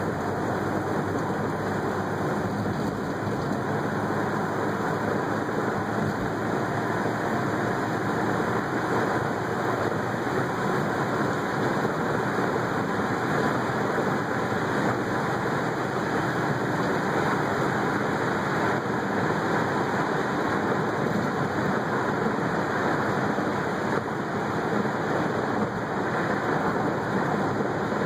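Steady in-cabin driving noise of a 1978 Ford Fairmont wagon under way: engine, tyre and wind noise blend into one even rush.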